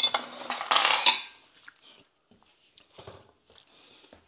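Plates clattering and ringing as they are handled and set down, for about a second. Then faint knocks and scraping of kitchenware.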